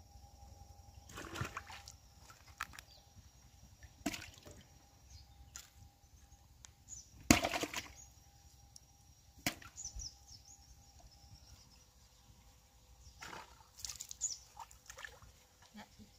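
Water splashing and sloshing in a shallow muddy pond as a person wades and dips a hand net to scoop fish. The splashes come at irregular intervals, the loudest about seven seconds in.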